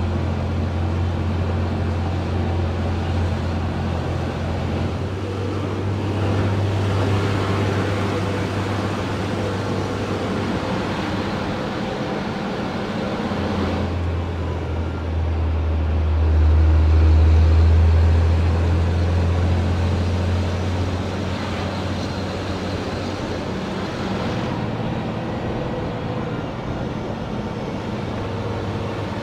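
Isuzu Giga FVZ 285PS truck's diesel engine running on the move, heard inside the cab over road noise, with a steady low drone. The drone grows louder and deeper about 16 seconds in, then settles back.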